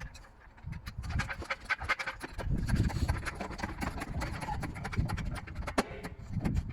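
Trolley jack being worked under a car and the car set onto an axle stand: irregular metallic clicks and knocks, with one sharp knock near the end.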